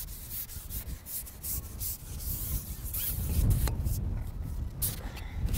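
Close rubbing and rustling handling noises, with wind buffeting the microphone as a low rumble that grows stronger about halfway through.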